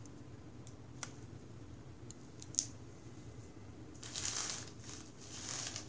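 A few faint ticks, then two soft rustling swells as a tabby cat rolls and wriggles on its back on carpet, its fur brushing the pile.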